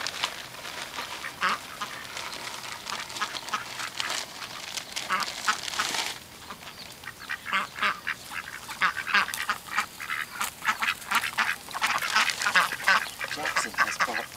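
A flock of domestic ducks quacking, many short calls overlapping, and busier in the second half.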